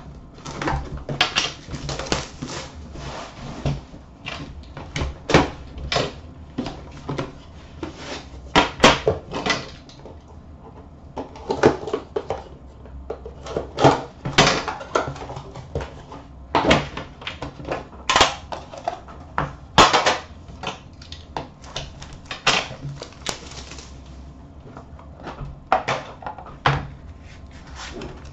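Plastic shrink wrap on a hockey card box being cut and pulled off, crinkling, with irregular clicks, scrapes and knocks as the box and its lid are handled and opened.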